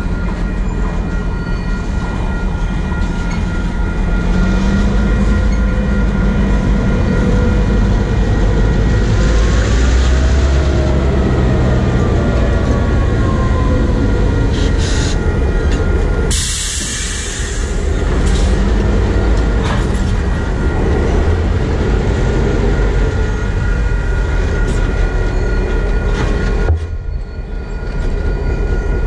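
A freight train rolling slowly over a road crossing, its wheels rumbling and clattering, with a steady high wheel squeal running through it. The CN diesel locomotives in the consist add a low engine rumble as they pass, loudest a little after halfway.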